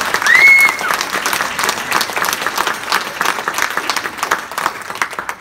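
Congregation applauding, the clapping thinning and dying away near the end. A short whistle rises and holds about half a second in.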